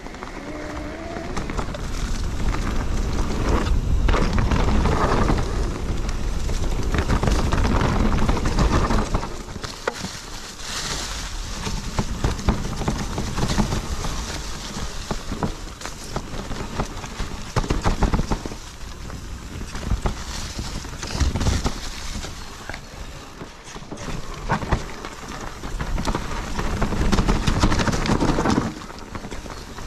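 Wind rushing over the microphone and the rumble and rattle of an e-mountain bike riding over a trail. The noise swells and falls, with sharp knocks here and there.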